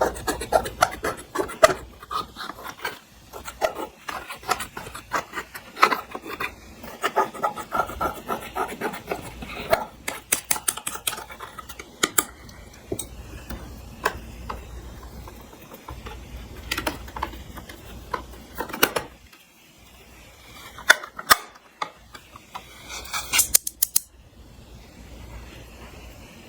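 Clear slime being kneaded and stretched by hand with makeup and glitter mixed in, giving irregular sticky clicks and pops, densest near the end.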